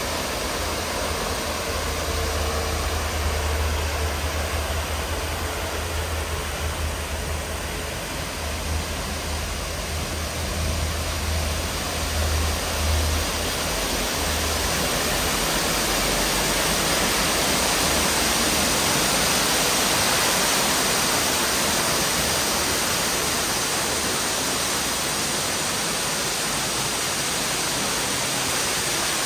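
Steady, unbroken rush of water falling down a waterfall.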